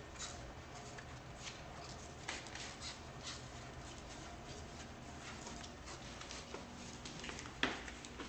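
Faint rustling and small clicks of chalked hands working a wrapped steel nail, with one sharper click near the end.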